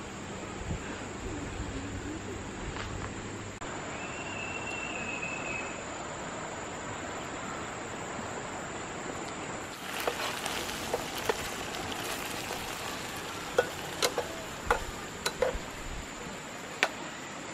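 Shallow river running over stones, a steady rushing hiss. In the last few seconds, sharp clinks of a metal spatula against a frying pan on a camp stove.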